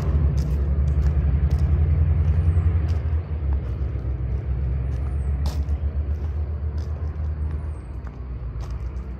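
A low, steady rumble that eases somewhat after about three seconds. A short high chirp repeats every couple of seconds over it.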